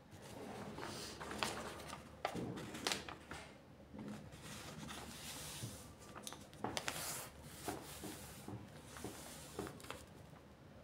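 Handling noises in a small room: irregular light clicks, taps and rustles of small objects being moved about.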